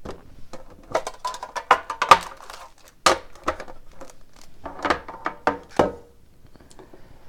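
Crinkling and rustling of hockey card box packaging being handled and opened, with bursts of short clicks and knocks.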